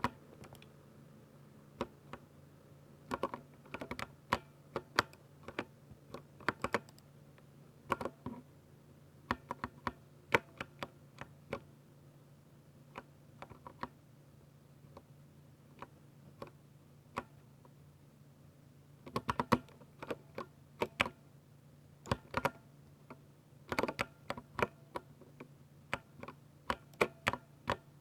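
Typing on a 60% mechanical keyboard with Ducky silver switches: keystrokes come in irregular runs with short pauses, busiest near the end. A faint steady low hum sits underneath.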